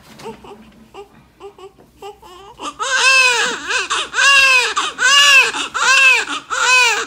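Newborn baby crying: small fussing whimpers at first, then from about three seconds in loud, rhythmic wails, roughly one cry a second.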